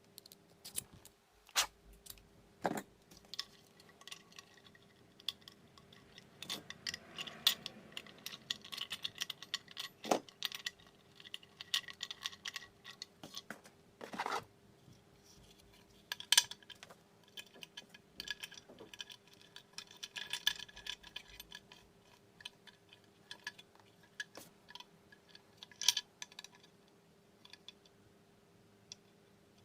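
Small metal parts and hand tools being handled: irregular clicks, knocks and metallic clinks, with brief spells of scraping and jingling. A faint steady hum runs underneath.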